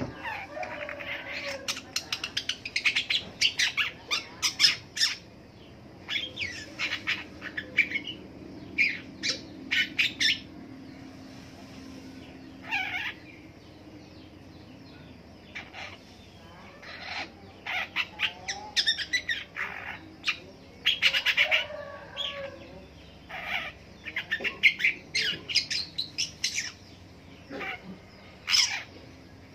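Long-tailed shrike (pentet) singing in runs of quick, varied chirps and chatter, with a lull of a couple of seconds about halfway through.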